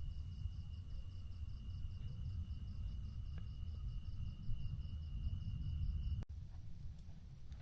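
Insects calling, a steady high trill together with an evenly pulsing chirp, over a low rumble of wind or ambient noise. All of it cuts off suddenly about six seconds in.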